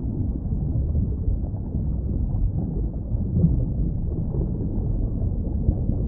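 Underwater ambience: a steady, muffled low rumble that wavers slightly, with nothing high-pitched in it.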